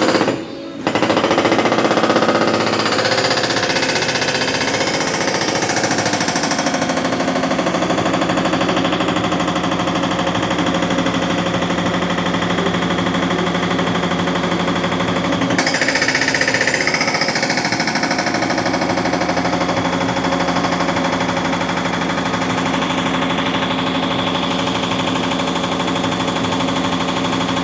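JCB 3DX backhoe loader working the road: its diesel engine running under load with a rapid, steady hammering. The sound changes abruptly about halfway through.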